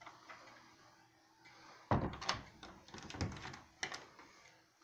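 Oak case door of an Emperor grandfather clock being handled, with wooden knocks and rattles. The loudest knock comes about two seconds in, more knocks follow a second later, and there is a sharp click near the end.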